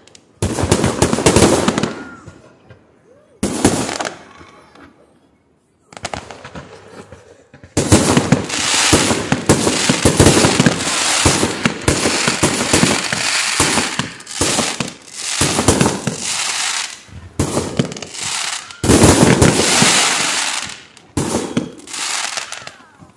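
A fireworks display: loud bangs and dense crackling in rapid clusters, with a short lull about five seconds in. From about eight seconds in the explosions come almost without a break, until shortly before the end.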